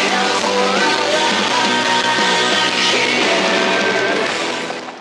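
Music with a singing voice, fading out near the end.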